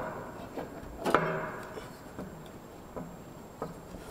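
A few light clicks and knocks as a driveshaft is slid into the transmission and lined up on its splines, the loudest about a second in.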